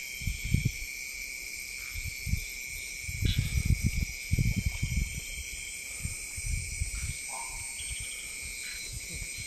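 Crickets and other night insects chirring steadily, with irregular low rumbles and thumps, most of them between about three and five seconds in.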